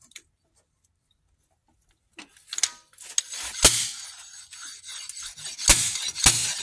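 Silent for about two seconds, then metal rubbing and scraping as a slide hammer is fitted to a balance-shaft puller tool, with one sharp metallic knock partway through. Near the end, a background music track with a steady beat of about two thumps a second starts.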